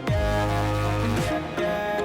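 Electronic background music with a heavy bass line; deep bass notes slide down in pitch at the start and again about a second in.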